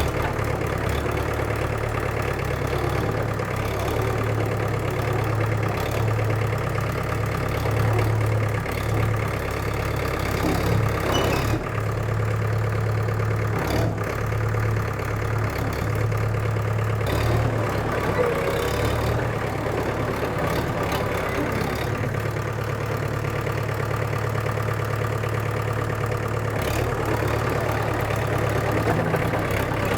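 1963 International TD5 crawler bulldozer's diesel engine running steadily, with a few short clanks along the way.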